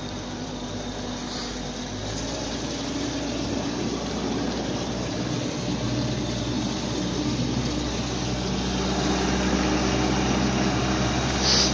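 Outboard motor running, pushing a jon boat heavily loaded with carp, with water rushing along the hull. The engine note steps up a little about two seconds in and again near the end, and the sound gradually grows louder.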